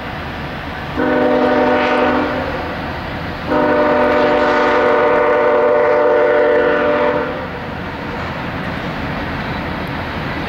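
CSX diesel locomotive's multi-chime air horn sounding a short blast, then a longer one of about four seconds, the closing short-long of a grade-crossing signal, over the steady rumble of the passing train.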